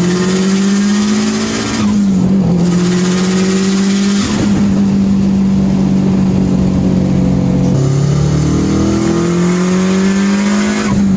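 Tuned turbocharged car engine held at high, fairly steady revs, its pitch dipping briefly and climbing back twice, about two and eight seconds in.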